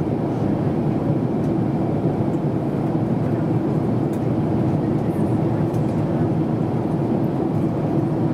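Cabin noise of an Airbus A350-941 in flight: a steady low rush of airflow and the Rolls-Royce Trent XWB-84 engines, with a steady hum in it.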